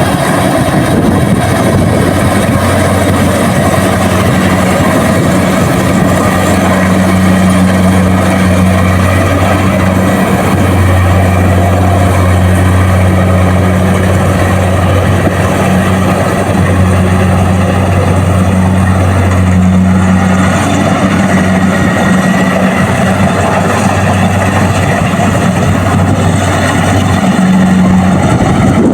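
Kubota DC-70 Plus combine harvester running steadily while harvesting rice: a constant low engine hum under a dense clatter of machinery.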